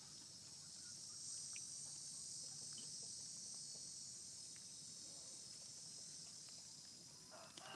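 Faint, steady high-pitched chorus of insects.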